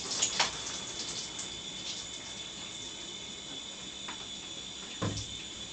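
Shower water running steadily, with a few faint clicks near the start and a brief low sound about five seconds in.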